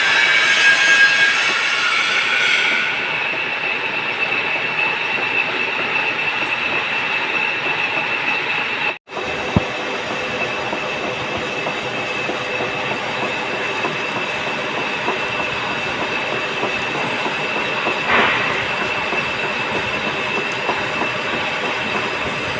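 Lathe turning a metal shaft: a steady mechanical din with a high whine running through it, breaking off for a moment about nine seconds in.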